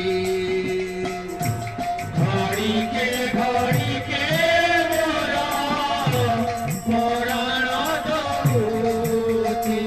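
Odia kirtan: devotional singing with two-headed barrel drums played by hand, their strokes keeping a steady rhythm under the voices.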